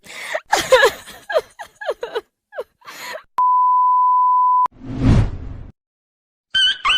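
Exaggerated wailing and sobbing from a comic crying sound effect, breaking into short gasping cries. It is followed by a steady censor-style beep lasting just over a second, then a brief noisy whoosh and thud. A high-pitched whining cry starts near the end.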